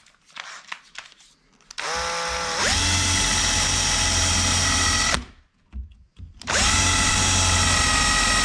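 Power drill with a countersinking bit boring screw holes into MDF, in two runs of about three seconds each. Each run spins up with a rising whine and then holds steady. A few light handling clicks come before the first run.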